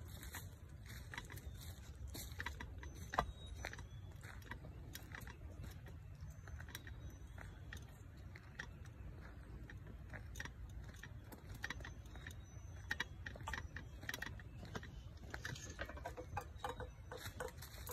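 Footsteps walking through dry fallen leaves: a steady run of small crackles and rustles, with one sharper snap about three seconds in, over a low rumble.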